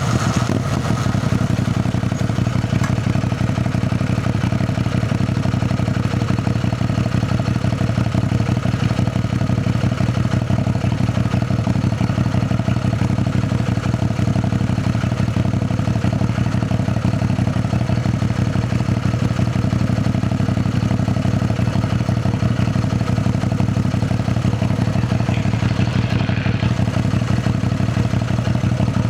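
CFMoto 450NK motorcycle's parallel-twin engine idling at a steady, unchanging speed.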